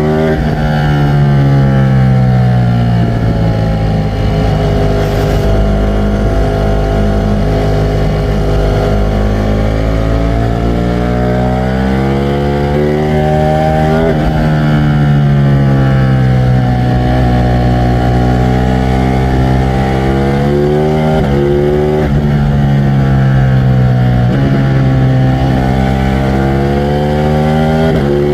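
Ducati Streetfighter V4 S's V4 engine running continuously, its note sinking, holding low, then climbing and falling again several times, with a few sudden drops in pitch.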